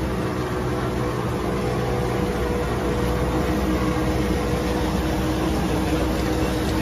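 Inline flexo printing and rotary die-cutting machine for paper cup fans running: a steady mechanical hum with several constant tones over the noise of its rollers and drives.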